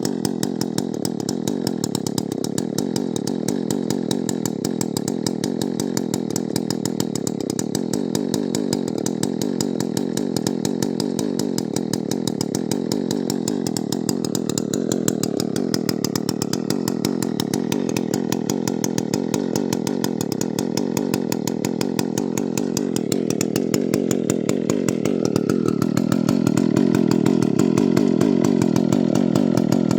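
Husqvarna 2100 CD two-stroke chainsaw, freshly rebuilt with a replacement piston, running steadily, getting somewhat louder near the end.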